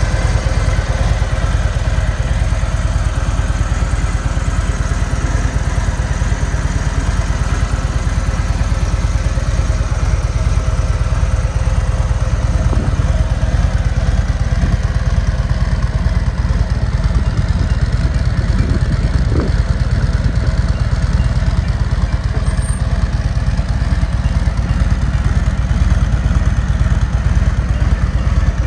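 Harley-Davidson Ultra Limited's Milwaukee-Eight 114 V-twin engine idling steadily.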